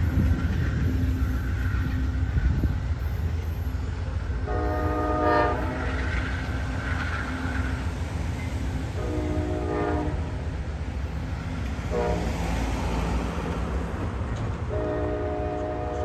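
GE Genesis locomotive air horn on an Amtrak Downeaster sounding two long blasts, one short and one long, the grade-crossing signal, over the steady low rumble of the train pulling out.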